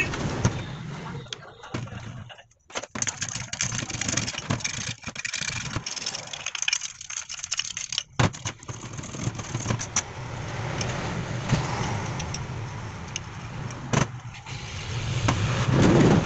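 Metal starter-motor parts clinking, knocking and scraping on a steel workbench as they are handled and cleaned, many sharp clicks over a steady noisy background.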